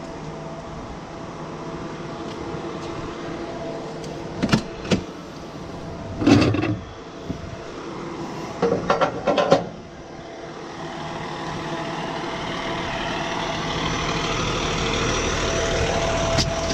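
Fire truck's diesel engine idling steadily, with a handful of sharp metallic clanks between about four and ten seconds in as steel locking pins are put into the outrigger legs. A hiss grows louder over the last few seconds.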